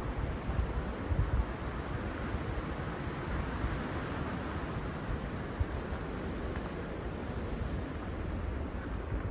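Strong wind: a steady rushing hiss with uneven low rumbling buffets as gusts hit the microphone.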